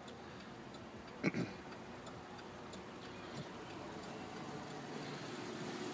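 Quiet background with one short knock about a second in, followed by a faint tick a couple of seconds later.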